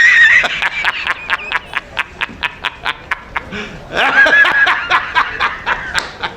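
High-pitched laughter: a squealing laugh, then a run of quick snickering pulses, about four or five a second, and another squealing laugh about four seconds in.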